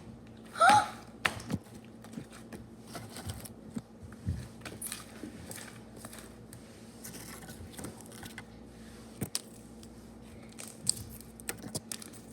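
Slime being stretched and worked by hand to blow a bubble: scattered sticky clicks and small crackles, with one louder short squeak under a second in.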